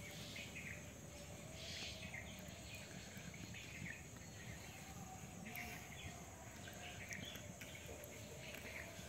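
Faint outdoor background with small birds chirping in short bursts every second or so.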